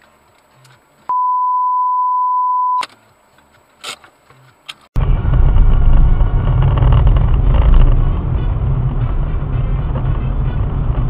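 A steady single-pitched beep lasting under two seconds. About five seconds in, a car's engine and road noise start abruptly and run on as a loud, even, low rumble, picked up by a dashcam inside the moving car.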